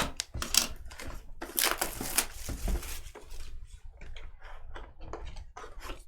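Handling noises of trading cards and plastic card sleeves: irregular crinkling and clicking, busiest a second or two in.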